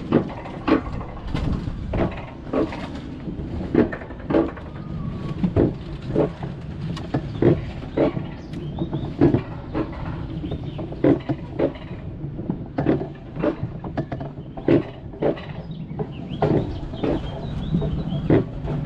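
Alpine coaster sled running along its steel rail track: a steady rumble with a sharp clack about every two-thirds of a second.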